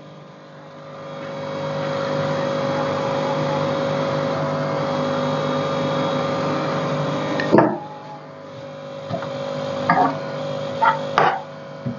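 Electric gas booster pump on the stove's gas line running with a steady hum and hiss, switched off with a click about seven and a half seconds in. A few light knocks follow near the end.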